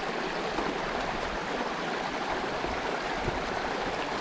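Small mountain creek flowing: a steady rush of running water.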